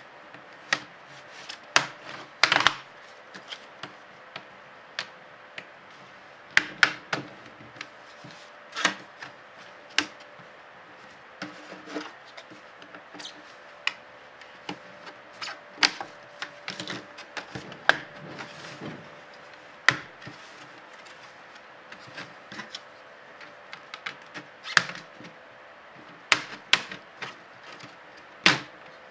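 Sharp plastic clicks and snaps at irregular intervals, a few a second at the busiest, as the palm rest of an HP Pavilion TouchSmart 15 laptop is pried off with a plastic opening tool and its clips let go. A faint steady hum lies underneath.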